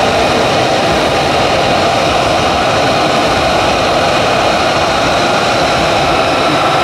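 F-35A Lightning II's single F135 turbofan running steadily: a loud, even jet noise with a steady whine. A higher tone joins near the end.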